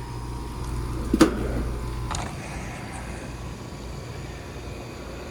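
Air conditioning unit running with a steady low hum, after a repair for a noise and now sounding much better. A sharp knock comes about a second in, a fainter one about two seconds in, and after that the lowest part of the hum drops away.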